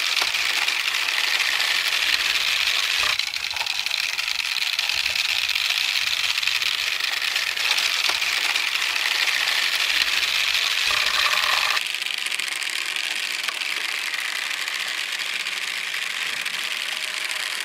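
Glass marbles rolling and clattering along wooden marble-run tracks: a steady, dense rattle of small clicks and rolling noise that thins a little about twelve seconds in.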